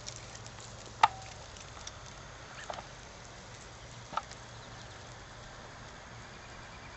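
Quiet outdoor background with a faint low steady hum, broken by three brief sharp clicks, the loudest about a second in.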